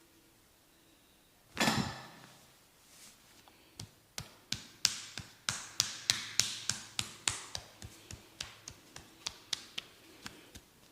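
Head massage sounds: a single brief, loud rubbing slap about one and a half seconds in, then a run of sharp clicking taps on the head, about three a second, strongest in the middle and fading toward the end.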